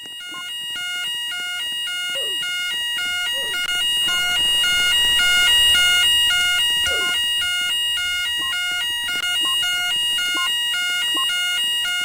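Store fire alarm sounding between voice evacuation messages: a fast repeating pattern of pulsed tones at several pitches over one steady high tone, growing louder over the first couple of seconds and then holding.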